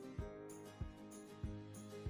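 Soft background music with held notes over a steady beat, a little under two beats a second.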